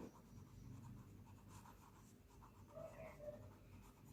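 Faint scratching of writing strokes in near silence.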